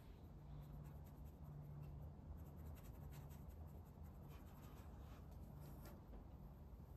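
Faint scratching of a paintbrush laying oil paint onto gesso-primed canvas in a run of short strokes, over a low steady hum.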